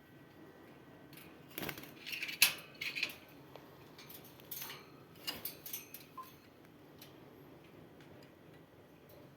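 A run of short, sharp clicks and light taps of small hard objects, loudest about two and a half seconds in and dying away after about six seconds.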